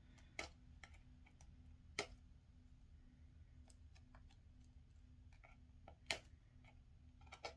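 A few faint, sharp clicks and crackles, spread a second or more apart, from fingers picking at the cellophane wrapping on a small cardboard product box while trying to break its seal.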